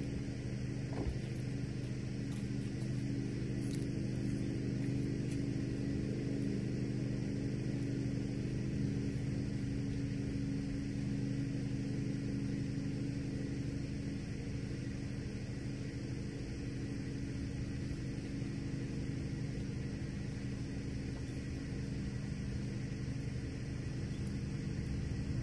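A motor running steadily, giving a low, even hum with no change in pitch.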